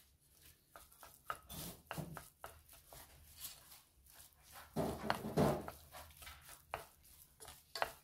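Wooden spoon stirring and pressing mashed potato in a stainless steel pan, with irregular scrapes and knocks of the spoon against the metal. The loudest stretch comes about five seconds in.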